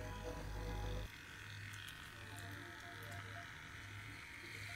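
Small cordless pet hair clipper buzzing faintly as it trims the short fur around a dog's eyes and cheeks, under soft background music.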